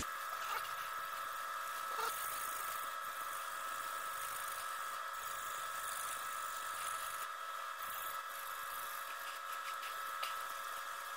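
A small electric motor running with a steady, even whine.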